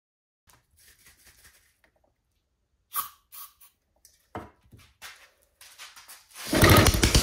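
A few short hisses from an aerosol spray can into a homemade 3D-printed 180cc single-cylinder engine, then a knock. Near the end the engine is pulled over by hand and fires, running loud with rapid firing pulses for about the last second.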